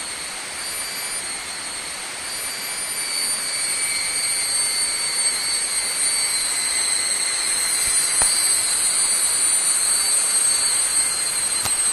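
Loud chorus of jungle insects: a steady, shrill drone sounding at several pitches at once, swelling a little about four seconds in.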